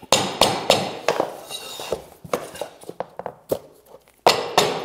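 A hammer striking the knuckle of a flooring pull bar in a quick, irregular series of sharp knocks with a short metallic ring, with a brief pause shortly before the end. The pull bar is drawing a vinyl plank tight along a wall to lock the last row in.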